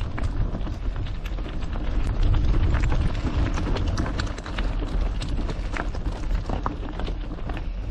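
Mountain bike riding over a gravel trail: tyres crunching and the bike rattling, with frequent irregular clicks and knocks. Wind rumbles low on the microphone underneath.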